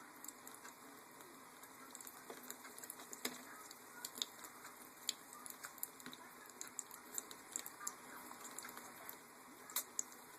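Green-cheeked conure bathing in a toy boat of water: faint, irregular small splashes and water patter, with scattered sharp little clicks.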